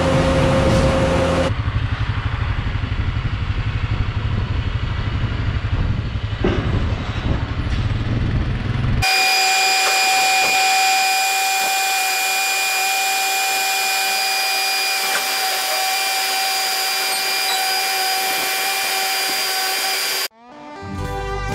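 Heavy machinery running in edited stretches. First a low, steady rumble from a Bobcat S650 skid-steer loader's diesel engine. After an abrupt cut about nine seconds in comes a steadier, higher machine whine with several held tones, which cuts off shortly before the end.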